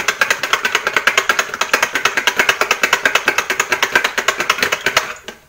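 Stick blender mixing cold-process soap batter of oils and lye solution in a plastic jug, bringing it to trace. It makes a fast, even rattling clatter that stops just before the end.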